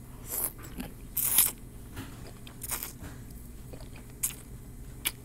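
A person eating chicken noodle soup noodles close to the microphone: slurping the noodles in off a fork and chewing, in a handful of short bursts, the loudest about a second in.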